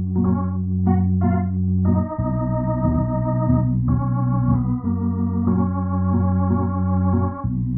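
Instrumental keyboard music: held organ-like chords over a steady bass line, the chords changing every second or two.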